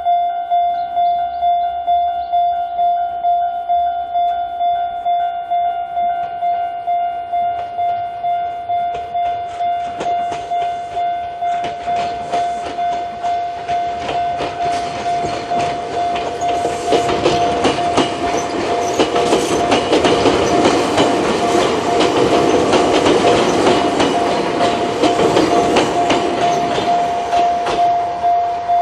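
Japanese level-crossing alarm ringing the Chichibu Railway's single-tone warning bell, one pitch repeating in an even pulse. From about twelve seconds in a train approaches and passes over the crossing, wheels clacking over the rail joints, loudest in the second half.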